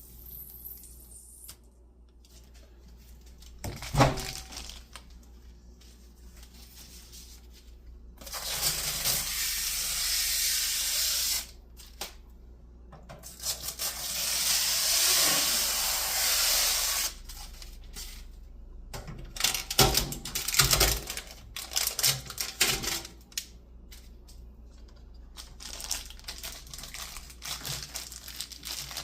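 Protective plastic film being peeled off a new microwave: two long, steady peels, the second starting a couple of seconds after the first ends. Scattered knocks and crinkles of handling come before and after them.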